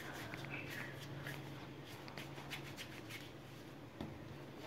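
Faint soft rubbing and light pats of hands shaping a ball of flour-dusted dough on a countertop, over a low steady hum.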